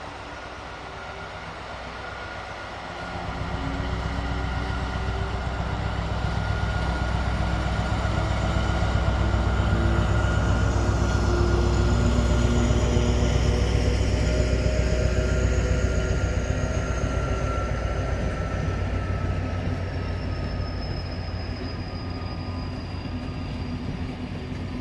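Diesel locomotive's engine rumbling as it draws a rake of passenger coaches past, growing louder from about three seconds in and easing off toward the end. Thin high squealing tones from the wheels slowly slide lower in pitch.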